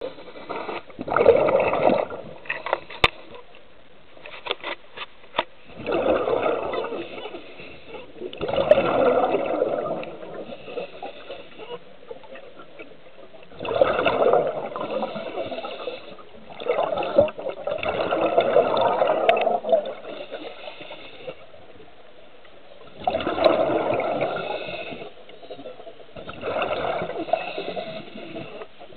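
Underwater bubbling from a diver's breathing: bursts of bubbles and rushing every three to five seconds, with a few sharp clicks between them.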